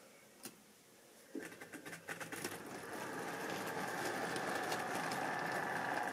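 Model railway train of tank wagons running past on the layout track: a single click about half a second in, then from about a second and a half the wheels clatter over rail joints and a steady running whir builds up and holds.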